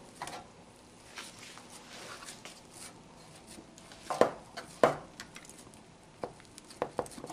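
Metal loaf pans knocking on a countertop and against each other while hands press bread dough into them: light taps and rustle, two sharper knocks about four and five seconds in, then a few small taps near the end.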